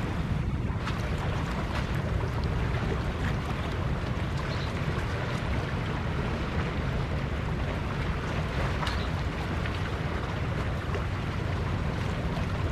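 Steady wind noise buffeting the microphone, heavy and low, over the wash of sea water against rocks.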